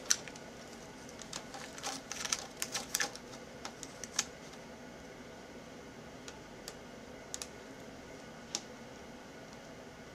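Light clicks and taps of a screwdriver, small screws and plastic laptop parts being handled while a laptop screen is fitted back into its lid. There is a dense run of irregular clicks over the first four seconds, then a few scattered ticks.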